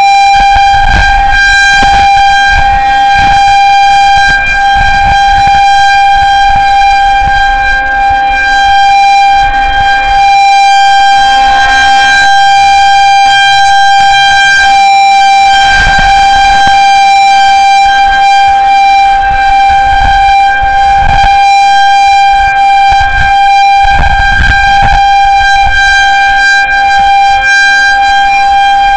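Federal Signal 2001-130 electromechanical outdoor warning siren sounding a loud, steady single tone as a tornado warning alert, its pitch holding level throughout.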